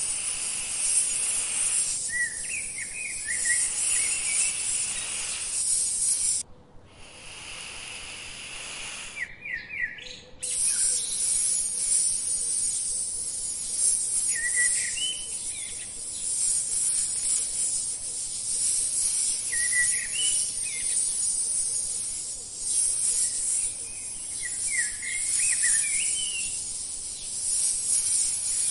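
Steady high-pitched insect chorus, like crickets, with a small bird's short chirping phrases every few seconds. The insect sound cuts out for a few seconds about a quarter of the way in, then returns.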